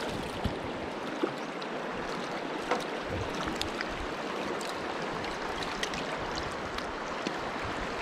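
Shallow river current running over a cobbled bed in a steady rush, with a few faint clicks in the first three seconds.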